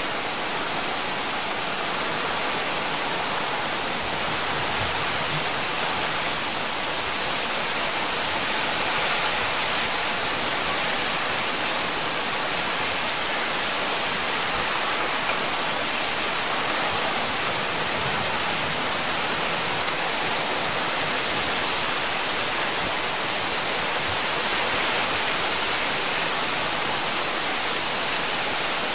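Heavy thunderstorm rain pouring down, a steady, dense hiss that holds even throughout.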